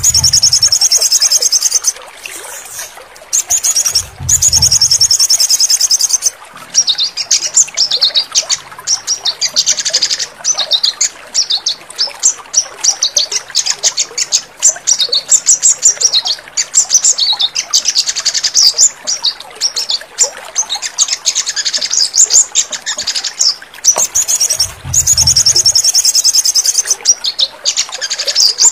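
Sogon bird song: fast, high trills and chirps repeated almost without pause, some long buzzing rattles and some choppier phrases.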